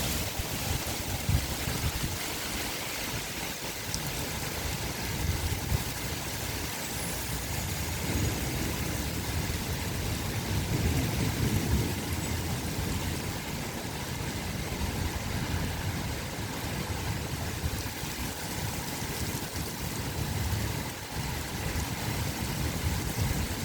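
Strong gusty wind blowing steadily, with low rumbling buffets on the microphone that swell strongest about halfway through.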